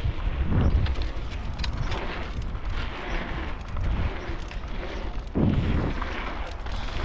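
Wind buffeting the camera microphone over the rolling rumble of bicycle tyres on asphalt, with small rattling clicks from the bike. Heavier low thumps of wind come about half a second in and again near the end.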